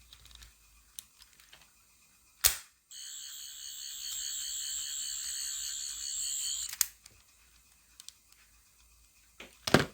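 A sharp click, then a Character Options toy Doctor Who sonic screwdriver's electronic sound effect: a high, warbling buzz lasting about four seconds that ends with another click. A further click comes near the end.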